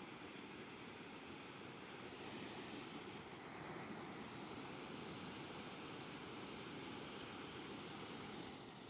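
Rushing floodwater from a swollen creek: a steady wash of water noise. A louder hissing swell comes in about four seconds in and fades just before the end.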